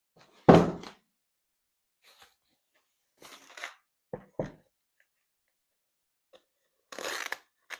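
Unboxing handling noise: a loud thump about half a second in as the cardboard box is set aside, then rustling of packaging, two quick knocks just after the middle, and another rustle near the end.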